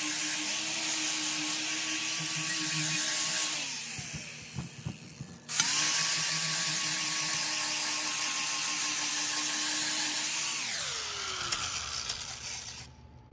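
An electric motor-driven shop machine running with a steady whine. It is switched off about three and a half seconds in and its whine falls as it spins down, with a few knocks. It starts again sharply at about five and a half seconds, then is switched off near the end and winds down with a falling whine.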